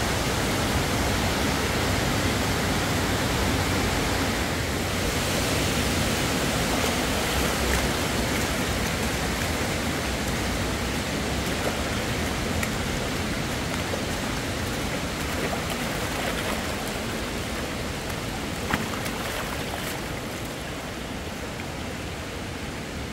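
Muddy floodwater rushing down a rocky canyon streambed: a steady wash of flowing water that slowly fades toward the end. One sharp click is heard late on.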